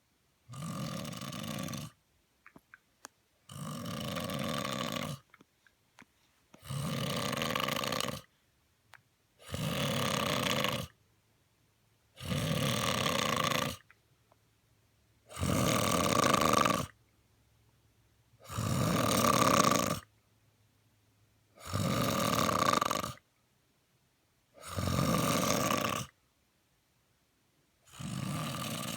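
A man snoring: ten snores in a slow, regular rhythm, one about every three seconds, each lasting about a second and a half.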